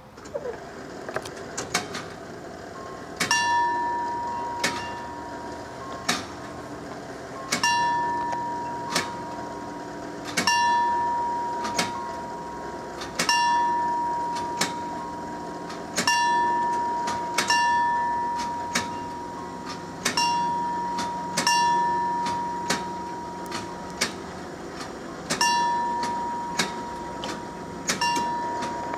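Level crossing warning bell striking about once every second and a half, each stroke ringing on and fading before the next. It starts faintly and is louder from about three seconds in: the crossing is signalling an approaching train while its barriers close.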